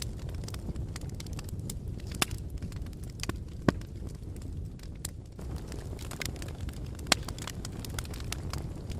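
Fire burning with a steady low rumble of flames and scattered sharp crackles and pops, the loudest pops about two, three and a half, and seven seconds in.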